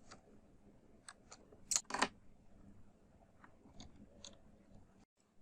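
Faint clicks and taps of a small screwdriver working the screws out of a laptop's plastic bottom panel, with two sharper clicks close together about two seconds in.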